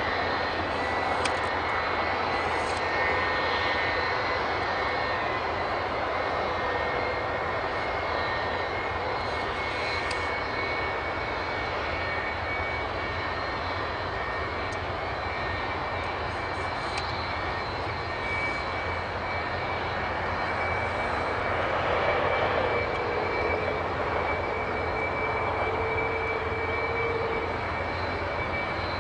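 Jet airliner engine running with a steady noise and a high whine.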